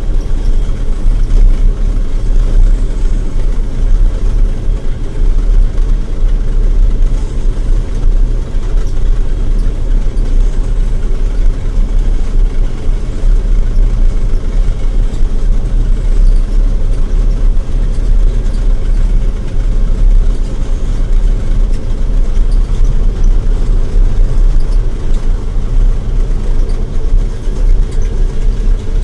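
Combine harvester running steadily while cutting and threshing wheat: a loud, constant low drone of engine and machinery.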